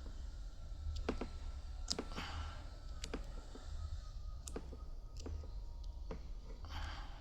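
Light, irregular clicks and short rustles of the small plastic-insulated wires of a Cat 6 cable being handled as the twisted pairs are untwisted and straightened, over a low steady hum.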